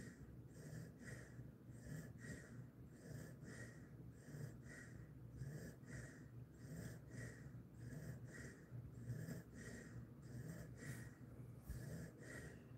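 Faint, quick, even breathing of a resting Jindo mix dog, with a soft wheeze in each breath, about two a second.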